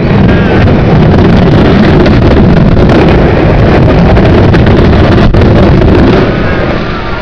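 Explosive demolition of high-rise tower blocks: a dense, continuous din of charges going off and concrete collapsing, loud enough to overload the microphone, with many sharp cracks through it. It eases off after about six seconds into a lower rumble.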